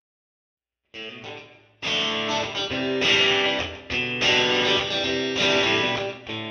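Guitar-led outro music that starts about a second in after a short silence, with a quieter opening phrase before the full band comes in just under two seconds in.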